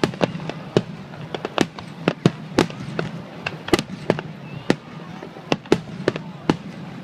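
Fireworks display, aerial shells bursting in rapid, irregular sharp bangs, several a second, some loud and others fainter.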